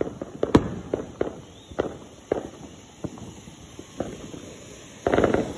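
Scattered sharp pops of firecrackers going off, about a dozen, irregularly spaced and thinning out, with a short rush of noise near the end.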